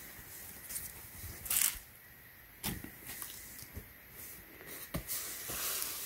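A cotton T-shirt rustling as it is flipped over by hand and smoothed flat on carpet: soft swishes and brushes of fabric, with a louder swish about a second and a half in.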